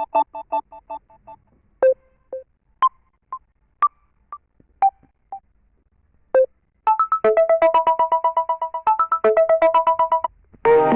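Samsung Galaxy A20s ringtones played one after another: a fast repeating run of short electronic notes stops about a second in, then comes a sparse tone of spaced pairs of short notes, and from about seven seconds a quick repeating run of short notes that stops shortly before the end.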